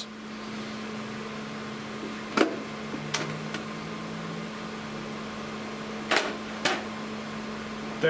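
A thin sheet-metal cover is lifted off an IBM z9 mainframe processor book and handled, giving four sharp metallic clicks: one about two and a half seconds in, another just after three seconds, and two more about six seconds in. Under them runs a steady low hum.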